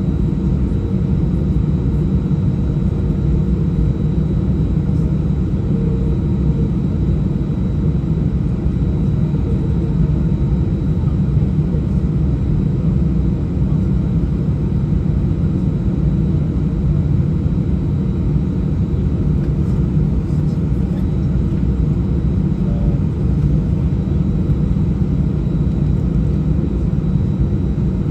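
Steady low rumble heard inside the cabin of an Airbus A319 during taxi, its jet engines running at idle.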